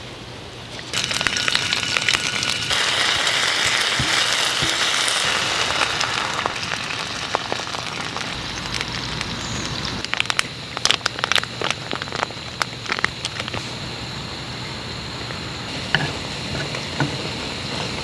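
Oil and food sizzling on a hot camping griddle over a gas burner, starting suddenly about a second in, with scattered crackling pops later on.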